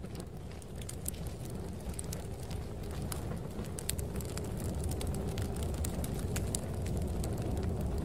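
Crackling fire with sharp pops at irregular moments over the low rumble of snowstorm wind, steadily growing louder as it fades up.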